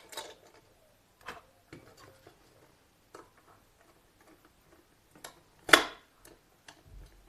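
Scattered small clicks and taps of a wire and hand tool against a plastic socket-and-switch fitting as a wire is fitted to its terminals, the loudest click a little before six seconds in.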